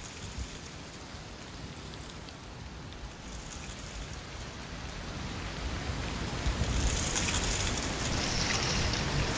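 Wind gusting through trees in autumn leaf, a steady rustling hiss that builds about halfway through into a stronger gust, with low rumbling of wind on the microphone.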